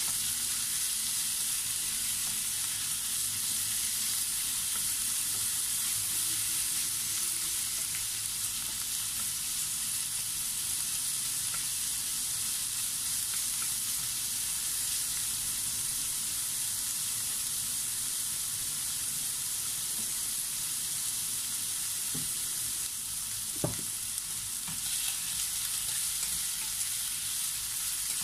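Sliced pork belly with onion and garlic sizzling steadily in hot oil in a non-stick frying pan while being stirred with a wooden spatula. There is one light knock a few seconds before the end.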